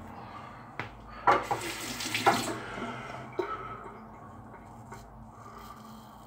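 A water tap runs briefly in a bathroom sink, starting just over a second in and lasting about a second, with a few sharp knocks: a shavette blade being rinsed. Before and after it comes the quiet scrape of the shavette through a week-old stubble.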